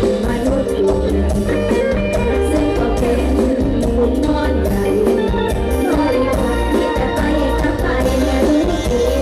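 A Thai mor lam stage band plays an upbeat dance number live through a large PA, with a steady drum-kit beat and heavy pulsing bass.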